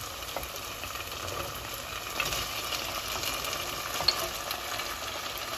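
Pieces of boiled mutton dropping into hot oil with browned onions and ginger-garlic paste, sizzling and crackling steadily as they begin to fry. Scattered ticks, and one sharp click about four seconds in.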